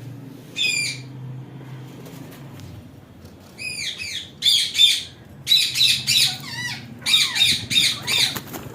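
Pet parrots squawking: short harsh calls, one early on and then a busy run of them in quick groups through the second half.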